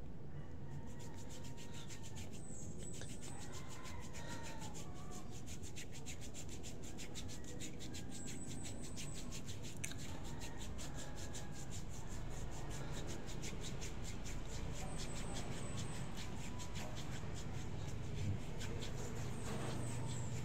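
Fingers rubbing cream into the skin of the underarm, a fast, even, scratchy rubbing that keeps going without a break.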